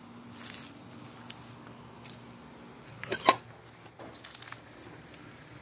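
Dry leaves crunching underfoot: scattered crackles and rustles, with one louder crunch a little past three seconds in.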